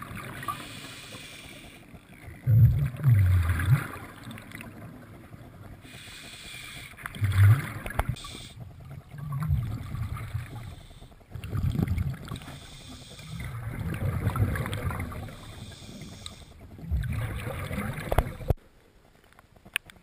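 Scuba diver breathing underwater through a regulator: a breath every two or three seconds, each with a low rumble of exhaled bubbles. The sound cuts off suddenly near the end.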